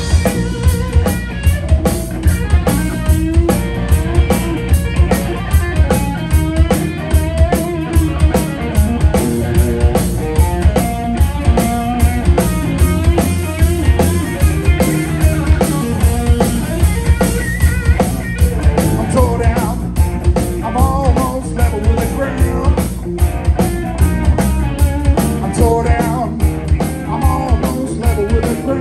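Live blues band playing an instrumental passage: electric guitar lines over bass guitar and a drum kit keeping a steady beat.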